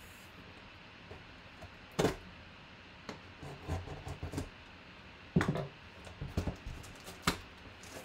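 Long cardboard box being handled and opened with a knife: sharp knocks about two, five and seven seconds in, with smaller taps and scrapes of cardboard between.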